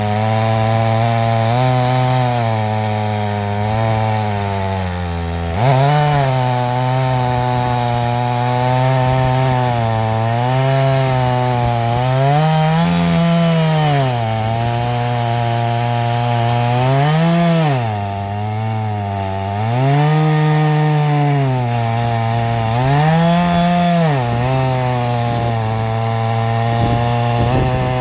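Chainsaw engine driving an Alaskan chainsaw mill through an ash log, running steadily under load. Its note sags and recovers several times as the chain bites into the hard wood.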